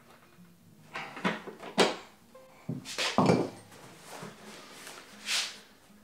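Handling knocks and clunks, about half a dozen in the first half, as hand tools are set down and a plastic diesel fuel tank is picked up and moved about, followed by a short brushing slide.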